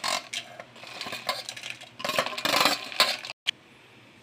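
Fried dried red chillies scraped and tipped from a steel plate into a steel mixer-grinder jar, with light clinks of metal on metal in two short spells. The sound cuts off abruptly about three and a half seconds in.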